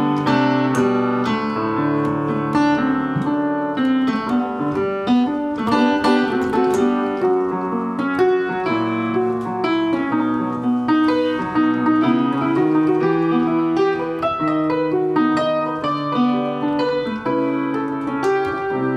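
Solo piano playing an instrumental interlude between sung verses: chords with a melody on top, with no voice.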